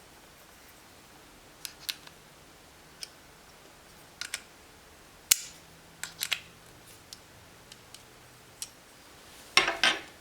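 Scattered sharp clicks and snaps from hands handling a GoPro HERO10 and its parts, irregular and a few seconds apart, with a quick cluster of louder clicks near the end.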